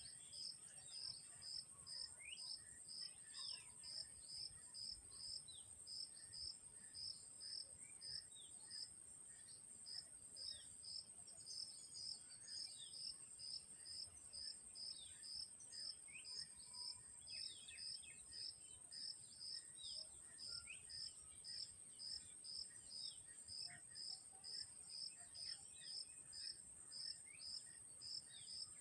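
Faint insect chorus: a steady high-pitched buzz with a second insect chirping in regular pulses about twice a second. Scattered short bird calls sound now and then.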